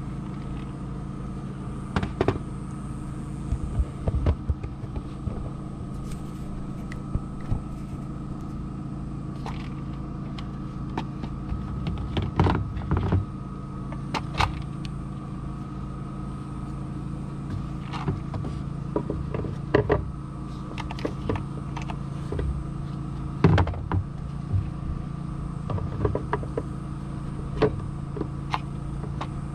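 Short plastic clicks, knocks and scrapes as an engine air filter is handled and slid into its plastic air box, scattered irregularly with the loudest knocks about halfway and about three-quarters of the way through. A steady low hum runs underneath.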